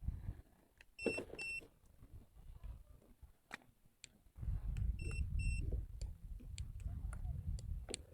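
Electronic double beeps from a Fighter Basic bait boat's control system as a hopper-release command is sent: two short beeps about a second in and two more about five seconds in, with small button clicks. A low rumbling noise takes over in the second half.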